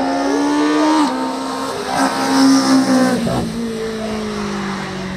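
Race car engine at full throttle on a hillclimb run, its pitch climbing and then dropping sharply at gear changes about a second in and again after about three seconds, with the pitch falling slowly near the end.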